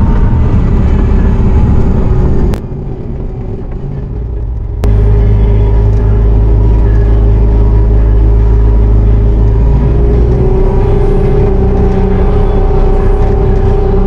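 Bobcat T650 compact track loader's diesel engine running under load, heard from inside the cab, with a steady whine over the engine. The sound drops abruptly quieter for about two seconds near the start, then comes back just as abruptly.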